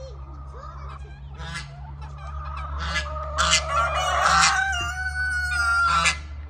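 Chickens clucking and cackling in a run: a string of short calls that get louder, then one long drawn-out squawk late on.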